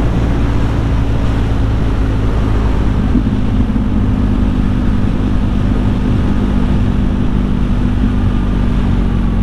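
BMW R nineT's boxer twin engine running at a steady cruising speed under a constant rush of wind and road noise.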